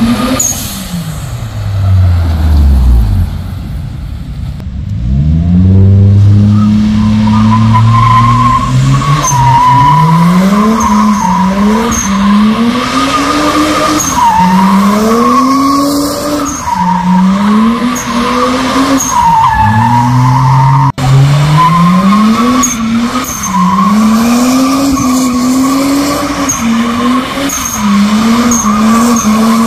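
Toyota Mark II's 1JZ-GTE turbocharged straight-six revving hard while drifting, the revs climbing and dropping about every two seconds. Over the engine the tyres squeal continuously from several seconds in. In the first few seconds the engine note falls as the car comes past.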